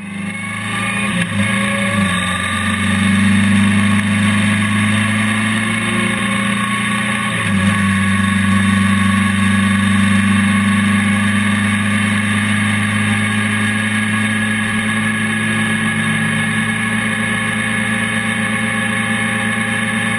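Honda NC700X motorcycle's 670 cc parallel-twin engine running steadily while riding, heard from a camera mounted near the front wheel. The engine note dips briefly and returns about a second in and again about seven seconds in.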